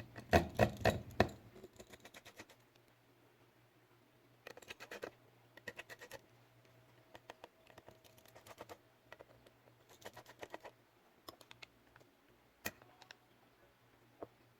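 Small precision tools clicking and scratching against the screws and plastic parts inside an opened Huawei nova 2 Plus phone as the screws are taken out. The clicks come in scattered clusters over a low steady hum.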